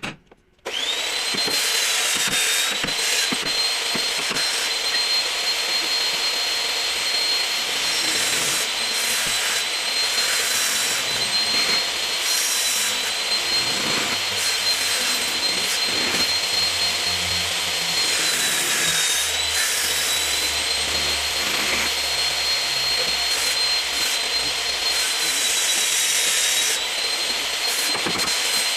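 A high-speed power tool spins up and runs steadily with a high whine and a rough grinding hiss, the whine wavering a little in pitch as it is worked.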